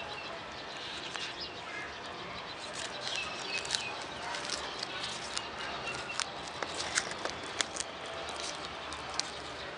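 A tortoise biting and tearing zucchini leaves: a run of small, crisp leaf crackles and snaps, starting about a second in and coming thickest in the middle.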